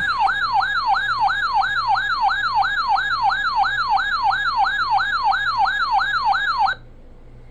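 Electronic siren-style alert tone from a weather radio, sounding for an incoming flash flood warning. Its pitch sweeps up and down about three times a second, then cuts off suddenly near the end, leaving a low hum and a short click.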